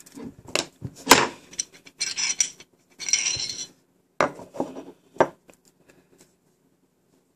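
Metal parts of a Glock pistol slide clicking and clinking as it is taken apart and the recoil spring assembly is lifted out, with two short scraping slides of metal on metal. The sharpest clicks come about a second in and again just after five seconds.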